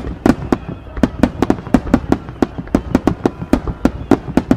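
Aerial firework shells bursting in a fast, irregular string of sharp bangs, about five a second.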